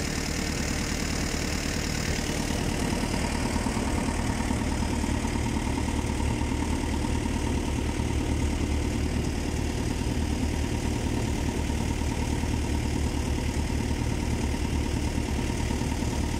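A fishing boat's engine running steadily, a low even drone that does not change.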